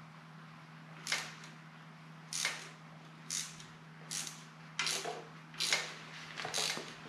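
Ratchet wrench clicking in seven short strokes, about one a second and coming a little quicker near the end, as it works a stuck nut.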